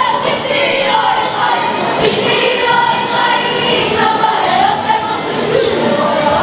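A children's kapa haka group singing a Māori action song together in unison, many voices holding sung notes that move up and down in pitch.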